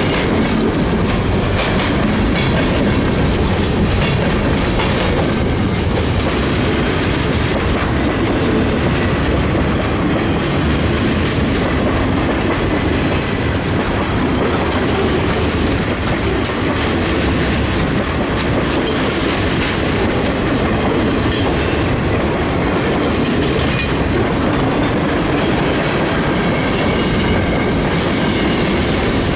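Freight train's cars rolling past at close range: steel wheels running on the rails in a loud, steady noise that does not let up.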